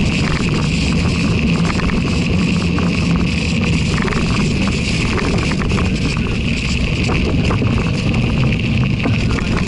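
Bicycle tire rolling over wet slush and packed snow: a steady low rumble and hiss with irregular crunching clicks as the tire breaks through snow.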